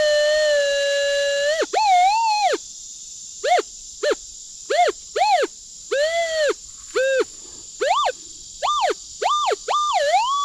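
Minelab Manticore metal detector's audio tones while pinpointing a target: a held tone of about a second and a half, then a string of short tones that rise and fall in pitch as the coil sweeps back and forth over it, ending in a steady higher tone. The repeated responses signal that the target is still there.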